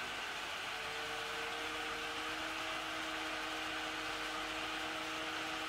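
HP 625 laptop's cooling fan running after power-on: a steady whir, with a few low hum tones joining in during the first couple of seconds.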